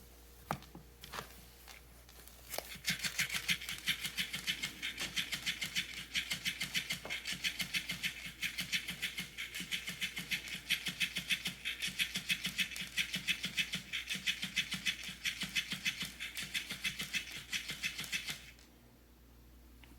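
Battery-powered moving cat toy running, its motor mechanism making a fast, even rattling clatter that starts a couple of seconds in after a few clicks and cuts off near the end.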